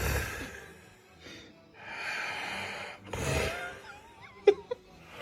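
A person snoring: several rough, noisy breaths with short gaps between, then a sharp snort with a wavering whistle-like wheeze about four and a half seconds in.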